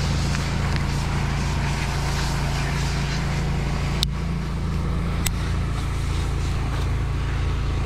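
Vehicle engine running steadily at a constant speed, with two sharp clicks about four and five seconds in.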